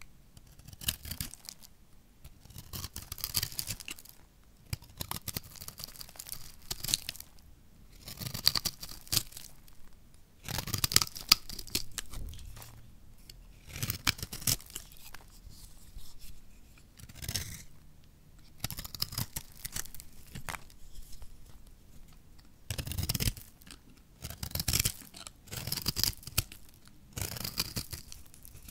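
A utility-knife blade cutting through a dry bar of recycled soap made of pressed soap flakes: a dozen or so scraping cuts, one every second or two, with short pauses between them.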